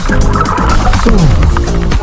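Background music track. One note slides down in pitch about a second in.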